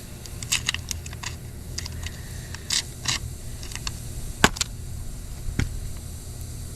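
Tire-plug tools and kit being handled: scattered small clicks, taps and brief scrapes, with one sharper click about four and a half seconds in, over a steady low hum.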